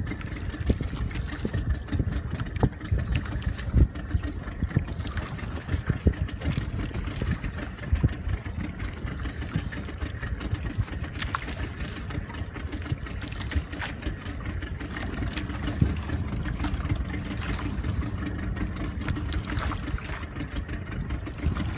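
An outrigger fishing boat's engine idling steadily, with irregular short knocks over it.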